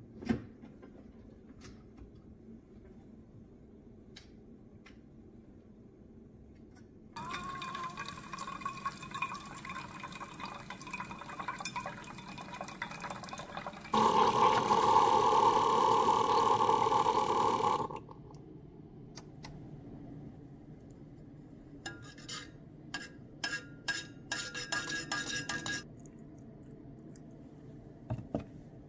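Single-serve pod coffee maker brewing into a tumbler: its pump hums steadily for about seven seconds, then a much louder rush of coffee streams into the cup for about four seconds and stops. After that a spoon clinks against the metal tumbler in a run of sharp taps as the coffee is stirred.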